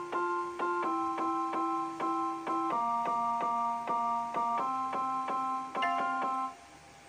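Background music: a keyboard piano playing repeated chords in a steady pulse, moving to a new chord every couple of seconds, stopping shortly before the end.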